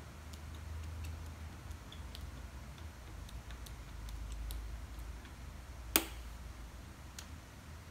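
Light clicks of the push buttons on a DBR01-X fireworks firing-system remote being pressed one after another, then one much louder sharp click about six seconds in as the red rocker power switch is flipped.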